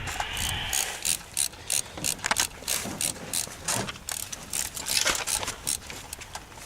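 A run of sharp, irregular clicks and crackles, a few each second.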